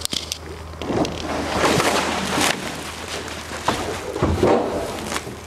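Plywood shipping crate top being lifted off its wooden skid: wood scraping and knocking, a run of noisy scrapes with several sharp knocks starting about a second in.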